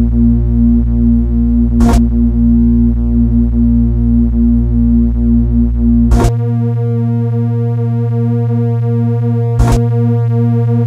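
Water-ejection tone for a phone speaker: a loud, steady, low electronic buzz with a dense stack of overtones, played to vibrate water out of the speaker. About six seconds in it shifts to a new pitch and loses its deepest part. Sharp clicks come at about two, six and nine and a half seconds.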